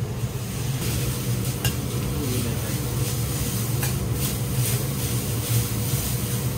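Yakisoba noodles sizzling on a hot steel teppan griddle while two metal spatulas toss and chop them, with repeated short scrapes and clicks of the spatulas on the plate. The sizzle picks up about a second in, over a steady low hum.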